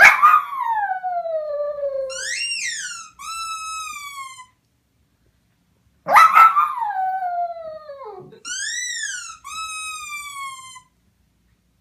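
A puppy making long, high-pitched howling whines that slide in pitch. A long falling call is followed by a quick rise-and-fall and then a shorter falling call, and the same three-call sequence comes again about six seconds in.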